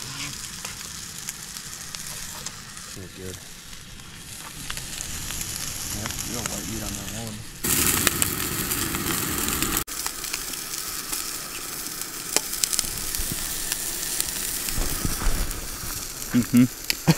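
Whole trout frying in a pan, a steady sizzle that gets louder about eight seconds in.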